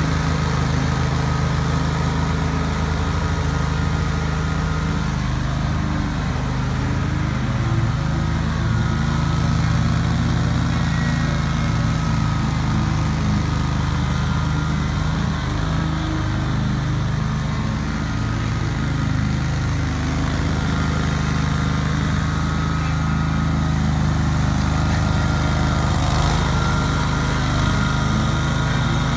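2003 Great Dane Super Surfer 52-inch stand-on mower's Kawasaki V-twin engine running steadily under load as the deck cuts through tall grass.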